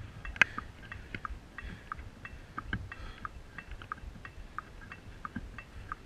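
Faint, quick ticking in a steady pulse, about four or five short ticks a second, over a low rumble.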